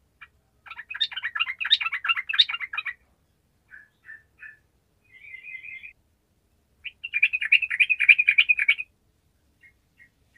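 Yellow-vented bulbul (trucukan) in full song: two bursts of rapid chattering notes, each about two seconds long, with a few short single notes between them.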